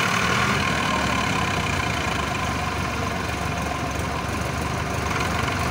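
Swaraj 855 tractor's diesel engine running steadily under load as it pulls a heavily loaded trolley through deep mud.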